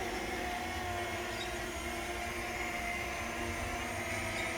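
Two small quadcopter drones, a DJI Mini 2 and a DJI Mini 3 Pro, flying together: a steady propeller hum made of several layered pitches that drift slightly up and down.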